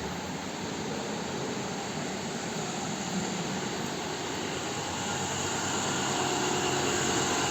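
Steady whooshing hum of a running machine, like a large fan blowing air, growing slightly louder toward the end.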